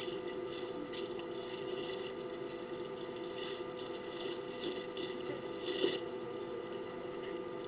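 Outdoor waterhole ambience: short high-pitched ticking chirps recur a few times a second over a steady low hum. About six seconds in there is one brief louder splash, as an elephant works its trunk in the water.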